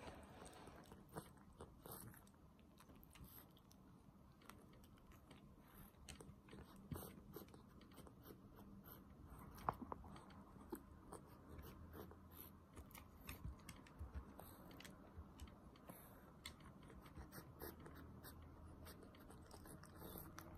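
A cat eating from a ceramic bowl: faint chewing, with many small clicks scattered throughout.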